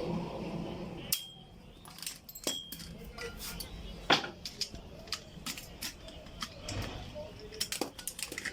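Metal parts and tools clinking and tapping at irregular intervals while a starter motor is worked on, with a sharper knock a little after one second and a louder one about four seconds in.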